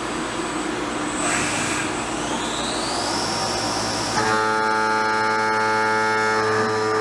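CNC milling machine's spindle spinning up, its whine rising over about a second, then a steady multi-toned whine from about four seconds in as the tool is brought down over the steel part, over a steady hiss.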